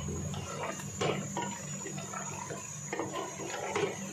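Wooden spoon stirring mutton in an aluminium pressure cooker, scraping and knocking against the pot in irregular sharp clicks over the bubbling of the boiling meat liquid. A steady low hum runs underneath.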